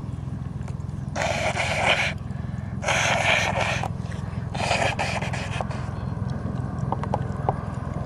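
A woman blowing her nose into a tissue three times, each blow a noisy blast of about a second. A steady low rumble of wind on the microphone sits underneath.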